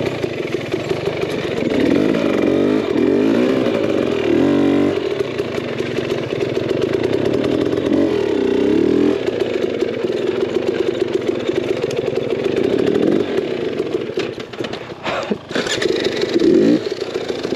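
KTM 300 XC's two-stroke engine revving up and down with bursts of throttle over rough ground. It drops back briefly near the end, with a few sharp knocks, then picks up again.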